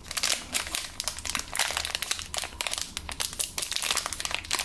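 Foil-lined plastic fruit snack pouch crinkling as it is handled and torn open by hand, an irregular run of crackles and rustles.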